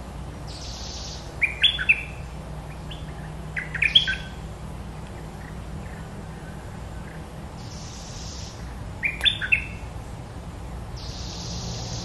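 Small songbirds giving three short clusters of sharp chirps, a few notes each, spaced several seconds apart, with soft hissing bursts about a second long between them.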